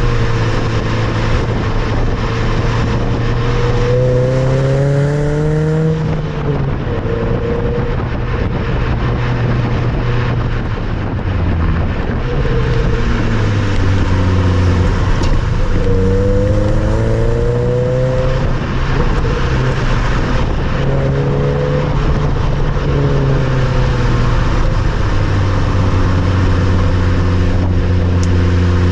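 Nissan Note Nismo S's 1.6-litre four-cylinder engine heard through a Nismo titanium aftermarket muffler while driving, with a light, high-pitched exhaust note. The revs climb steadily, then the pitch drops sharply about six seconds in and again about eighteen seconds in, climbing once more after each drop.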